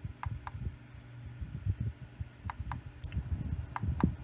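Buttons on a bedside digital alarm clock being pressed, with soft irregular thumps and clicks of handling under a faint steady hum. Short high beeps come in pairs, about a quarter second apart.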